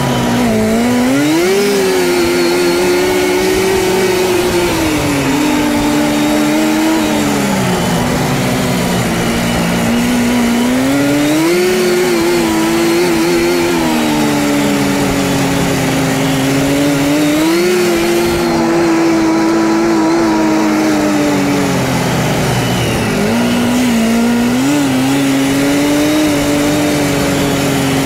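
1979 Scorpion Whip TKX snowmobile's two-stroke engine running under way, its pitch climbing and sagging several times as the throttle is worked along the trail. It is sped up by double-speed playback.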